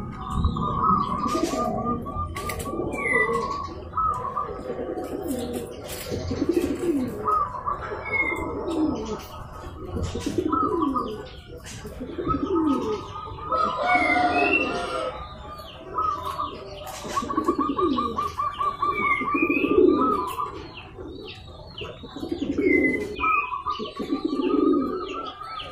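Zebra doves (perkutut) cooing in repeated rolling phrases about every two seconds, with short rising chirps from other small birds over them.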